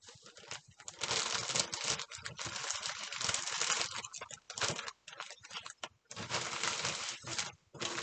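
Packaging crinkling and rustling in irregular bursts as a parcel is unwrapped by hand, with brief pauses in the handling.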